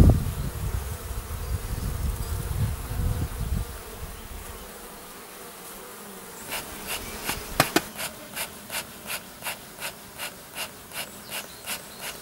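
Honeybees buzzing around a hive entrance, with a low rumble over the first few seconds. From about six and a half seconds in, a regular series of short breathy puffs, about two to three a second.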